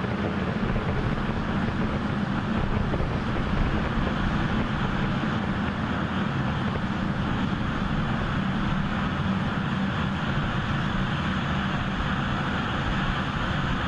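Steady rushing noise at the rocket launch pad after engine shutdown: the water deluge system spraying and the Super Heavy booster venting vapour.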